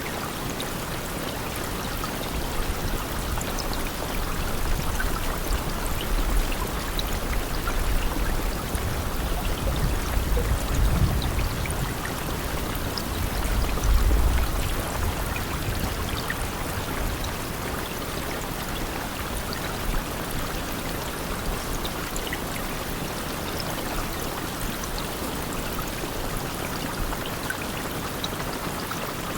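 Steady rain falling, a continuous even hiss of drops. A deep low rumble swells through the first half and fades soon after the middle.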